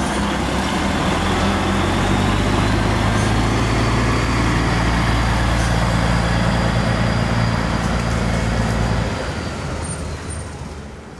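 Semi-trailer truck's diesel engine running as the tractor unit pulls its loaded curtainsider trailer slowly past at close range: a steady low drone that fades away near the end.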